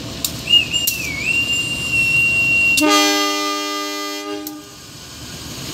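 A high, steady whistle blast lasting about two seconds, followed by one loud, long blast of a KAI diesel locomotive's air horn as the train gets ready to leave the station. Together they fit the Indonesian departure signals: the conductor's whistle that the train is ready, then the driver's horn in reply.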